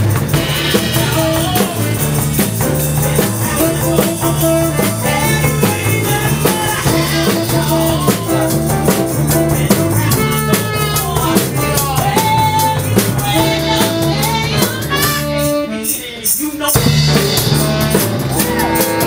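Live blues band playing with a walking bass line, drum kit, piano and saxophone. The sound thins out briefly about fifteen seconds in, then the full band comes back in.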